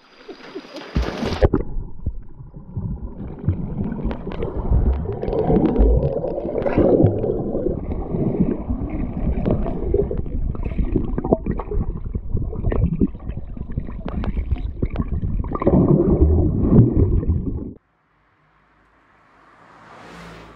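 Muffled water gurgling and churning around a submerged camera, with bubbles and many small knocks as a swimmer moves close by. It cuts off suddenly near the end, followed by a faint swelling hiss.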